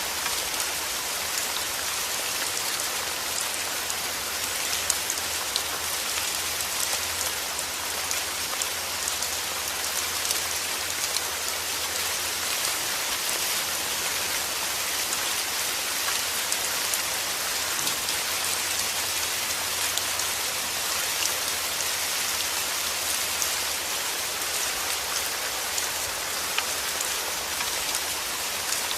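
Steady rain falling, a dense even hiss with many scattered individual drops ticking through it.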